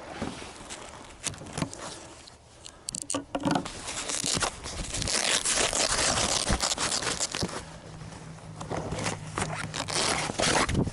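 Fabric aircraft cover rustling and scraping as it is pulled off the plane, with crackling, strongest from about four seconds in.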